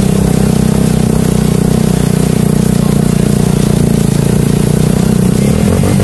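Motorcycle engine running at a steady speed, its note changing near the end.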